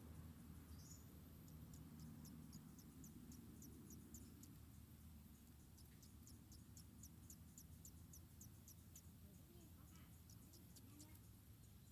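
Faint insect chirping: short, high chirps repeating evenly at about three a second, over a low background rumble.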